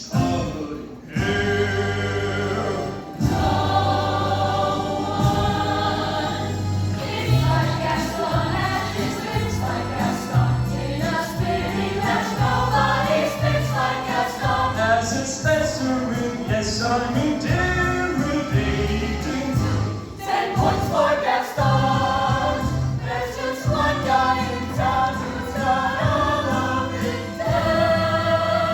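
High school choir singing in harmony, many voices together over an instrumental accompaniment with a steady moving bass line.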